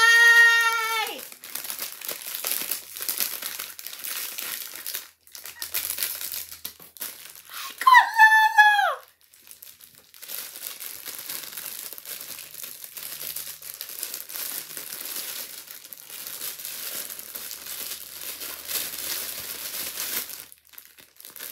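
Clear plastic wrapping crinkling and rustling as it is unwrapped by hand. A loud, high-pitched excited squeal sounds at the start, and a shorter squeal falling in pitch comes about eight seconds in.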